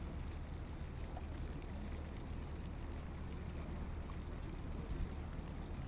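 Wind buffeting the microphone, a steady low rumble, with one brief low thump about five seconds in.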